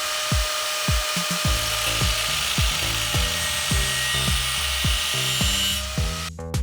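Abrasive power tool cutting steel: a steady, harsh hiss with a faint whine that stops about six seconds in. Background music with a steady kick-drum beat plays throughout.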